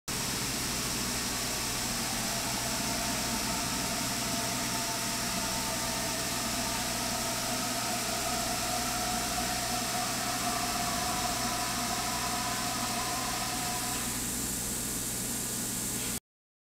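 Steady hiss and low hum of workshop machinery with a faint wavering whine; the whine changes about fourteen seconds in, and the sound cuts off abruptly near the end.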